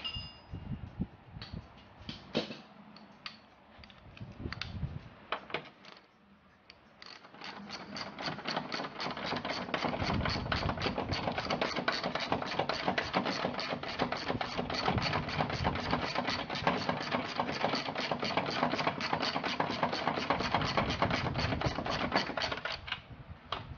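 Ratchet wrench clicking rapidly and steadily for about fifteen seconds, working a nut on a car's strut top mount. A few scattered taps and knocks of tools on metal come before it.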